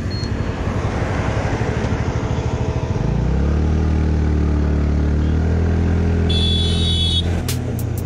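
TVS Ntorq 125 scooter's single-cylinder engine idling with a rapid even pulse, then the throttle opening about three seconds in as the scooter pulls away from a standstill at full throttle. From then on it is a steady drone that holds nearly one pitch, the CVT keeping the revs up while the speed builds. Near the end a run of sharp, evenly spaced clicks comes in.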